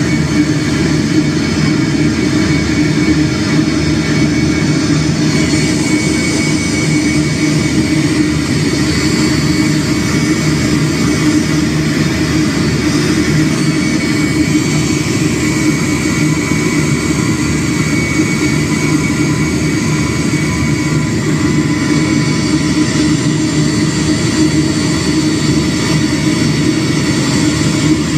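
Airliner's engines running steadily: a loud, even drone with a low hum and a few faint steady higher tones over a broad rushing noise.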